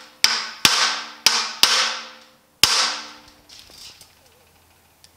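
Five sharp hammer strikes on a block held against the raised lip of a 1950 Chevy truck's steel bumper splash apron, each leaving a short ring. The panel is clamped down while the lip is tapped down to straighten it.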